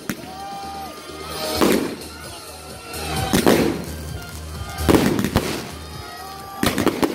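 Aerial fireworks bursting overhead in a string of loud bangs, one every second and a half to two seconds, each trailing off in crackle.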